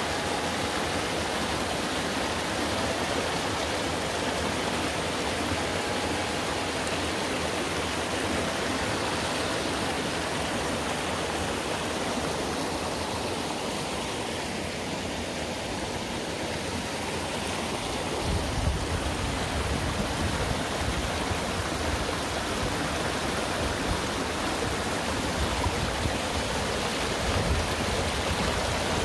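Mountain-valley stream rushing steadily in an even wash of water noise. A low rumble joins it about two-thirds of the way through.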